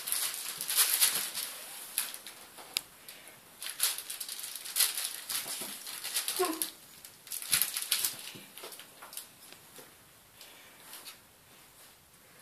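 A grey cat and a smaller black pet play-fighting on a fabric mat over a wooden floor: scuffling and rustling in quick, irregular bursts, with a brief squeak about six seconds in. The scuffling dies down toward the end.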